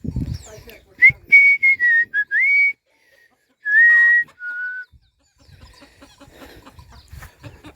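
Clear whistled notes: a quick phrase of rising and falling notes, then two longer held notes, each lower than the last.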